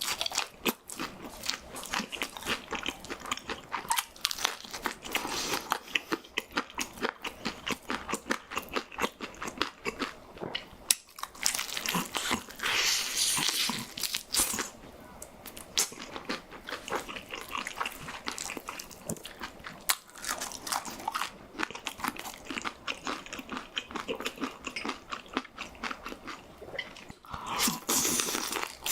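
Close-miked crunching and chewing of crispy fried food, a dense run of crisp bites and crunches throughout.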